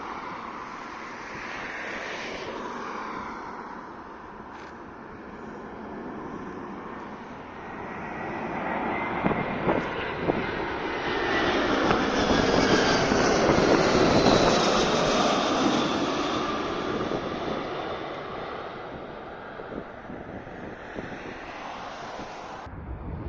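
Ilyushin Il-96-300PU's four PS-90A turbofan engines on landing approach as the jet flies past. The rush and whine swell to a peak about halfway through, the whine drops in pitch as it passes, and then the sound fades.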